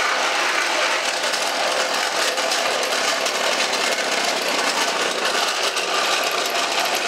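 A 3D-printed flywheel walking robot's spinning flywheel and cylindrical-cam gear drive making a steady, fast mechanical rattle as the stored flywheel energy drives its legs.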